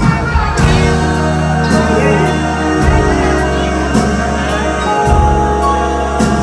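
A live band plays with singing over guitar, drums and keyboards, heard from the audience. The deepest bass drops out about a second in and returns near the three-second mark.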